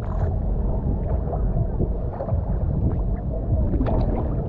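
Small sea waves sloshing and splashing against a camera held at the water's surface, heard muffled, with a few sharper splashes now and then.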